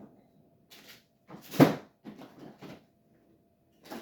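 Handling noises: a few light clicks and rustles around one sharp knock about a second and a half in, with a quiet pause before and after.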